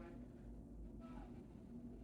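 Quiet room tone with a faint low hum and a faint voice in the background.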